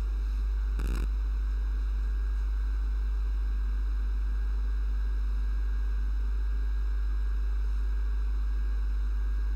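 Steady low hum with a faint hiss, the background of the recording with nobody speaking. A brief knock comes about a second in.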